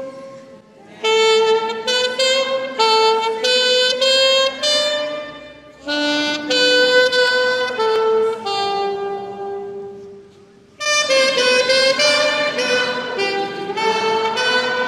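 Alto saxophone playing a carol melody solo, in phrases of held notes with short breaks for breath.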